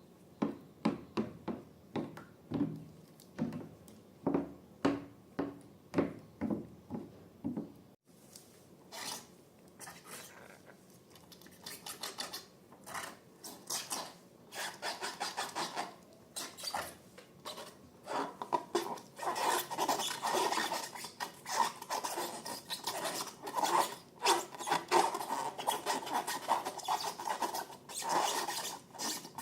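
Slime being worked by hand in a container: first a run of regular sticky strokes about twice a second, then, after a break about eight seconds in, denser crackling and squishing that grows louder in the second half.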